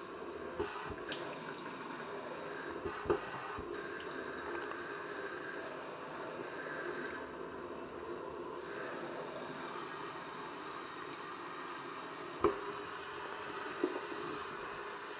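Water running and trickling in a stainless steel kitchen sink, a steady wash with a few sharp clicks on the steel, the loudest about three seconds in and again about twelve seconds in.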